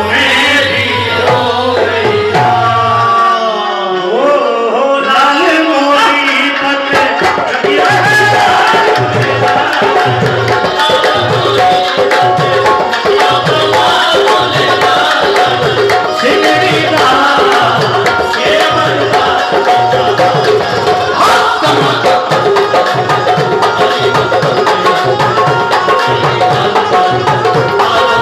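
Live Sufi devotional music: hand drums keep a steady beat under a keyboard melody and singing. The low drum beat drops out briefly about three seconds in, then comes back.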